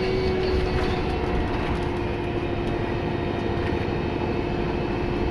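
Alexander Dennis Enviro 200 MMC bus running, a steady low engine and road rumble with its turbo whistling as a steady whine that sinks slightly in pitch.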